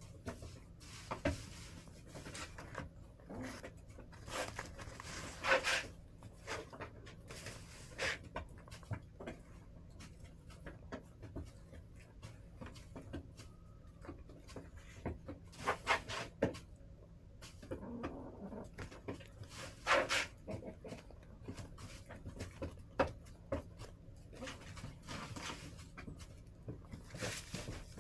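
Backyard hens moving about in their coop, making scattered short scratching, pecking and soft clucking sounds every few seconds.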